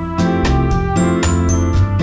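Background music: a tune of struck, ringing notes over a steady bass.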